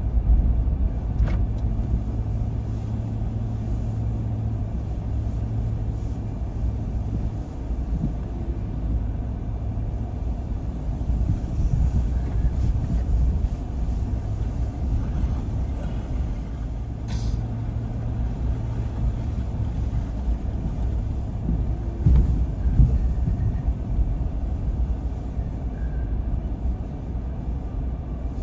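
A car driving: a steady low rumble of engine and tyres on the road, with a faint hum that comes and goes and a couple of brief clicks.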